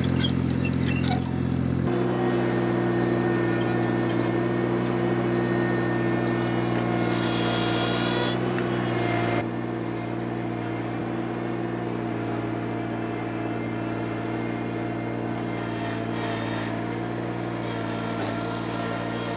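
Ventrac 4500 compact tractor running steadily while its power rake attachment spins through loose tilled soil. There are a few sharp clicks in the first second or so, and the sound drops slightly about nine seconds in.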